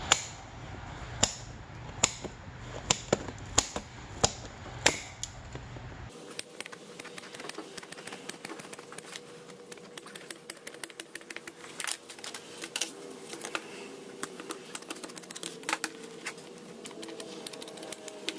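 Hand tin snips cutting through a sheet of stiff black plastic, a sharp snap with each bite. About seven loud snips come in the first six seconds, then a longer run of quicker, quieter snips.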